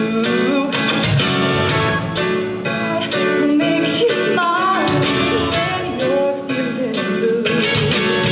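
Song with strummed acoustic guitar and a singing voice carrying a melody over regular strums.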